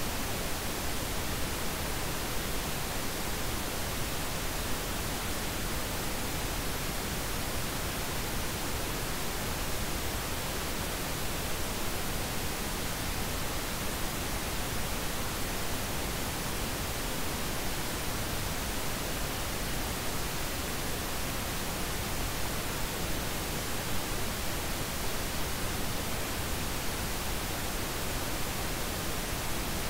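Steady, unchanging hiss of synthetic noise, spread evenly from deep to very high pitches with no tones or breaks.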